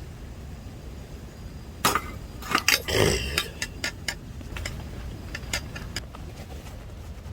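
Cookware and dishes clinking and knocking as they are handled, a quick cluster of sharp clicks loudest about two to three seconds in, with a brief rush of noise among them.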